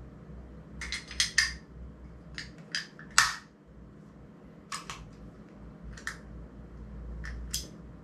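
About a dozen sharp clicks and snaps from a YC Onion Nut Q1 camera quick-release system being handled and worked, in short clusters. The loudest comes just past three seconds in.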